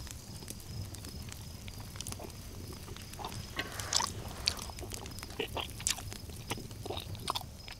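A man chewing and gnawing meat off a bone close to the microphone: scattered wet smacks and clicks of eating. A faint, steady, high insect trill sounds behind.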